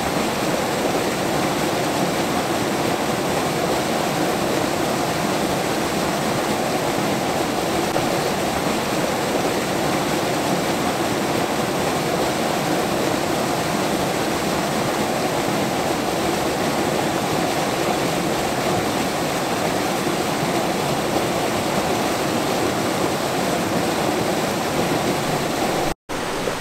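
Creek waterfall: a steady rush of falling water, broken off for an instant near the end.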